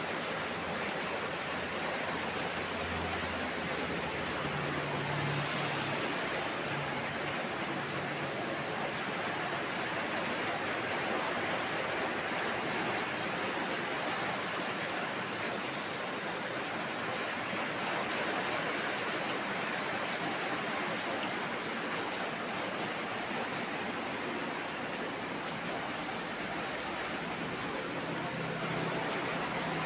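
Heavy downpour: dense rain falling in a steady, unbroken hiss.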